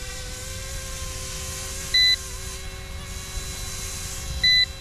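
Two short, high electronic beeps, about two and a half seconds apart (about two seconds in and near the end): a low-battery warning alarm. Under them, the steady whine of the F06 EC135 model helicopter's electric motor and rotors as it hovers.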